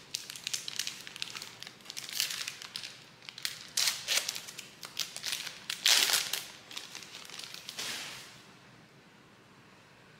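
Plastic trading-card pack wrapper crinkling and being torn open by hand, in irregular crackly bursts, stopping about eight seconds in.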